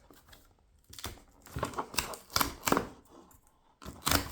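Knife packaging being opened by hand: a string of sharp clicks, scrapes and rustles as the box is handled, busiest in the middle and again near the end.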